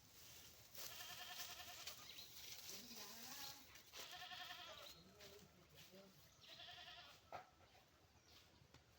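Goat bleating faintly three times, each call quavering, with a single sharp click near the end.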